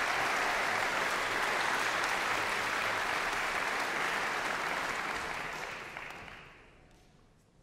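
Concert-hall audience applauding, the clapping dying away about six to seven seconds in.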